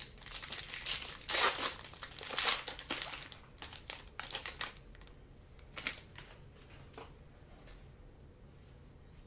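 Foil trading-card pack wrapper being torn open and crinkled as the cards are slid out. There is dense crinkling over the first three seconds, then scattered rustles that die away about seven seconds in.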